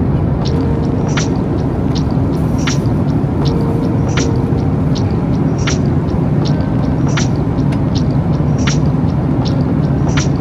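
Steady low rumble of a moving vehicle, with a soft music beat ticking over it about every three-quarters of a second.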